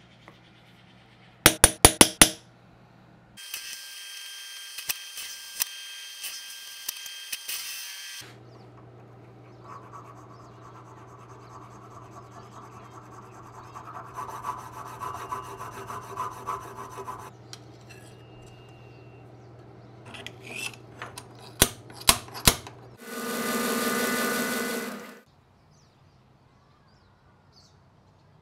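Metalwork on a brass knife guard at an anvil. About a second and a half in come four quick hammer taps on a punch. They are followed by a few seconds of high, hissing machine noise and then a long stretch of rasping file strokes as the guard's slot is filed out. Near the end come a few more sharp taps and a short pitched machine whir.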